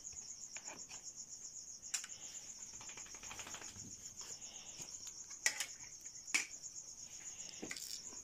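Crickets chirping steadily in a continuous high trill. Four sharp clinks of a metal spoon against the pot and bowl cut through it.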